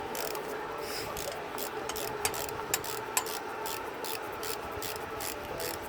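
Hand tools working on engine-bay bolts: irregular metallic clicks and scraping, several a second, over a steady background hum.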